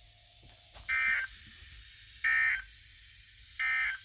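NOAA Weather Radio sending the SAME end-of-message data bursts: three short, raspy, high-pitched digital warbles about a second and a half apart, marking the end of the tornado watch broadcast.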